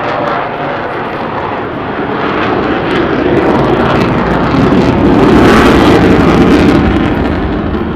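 Avro Vulcan bomber's four Rolls-Royce Olympus turbojets during a close flypast: a loud jet noise that builds to a peak about five to six seconds in, then begins to fade.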